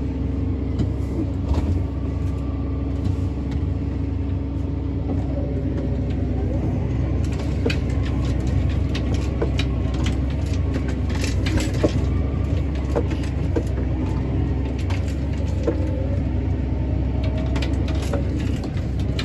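Tractor engine running steadily under load while pulling a speed disc through cattails and grass. Scattered sharp clicks and rattles join in from about seven seconds in.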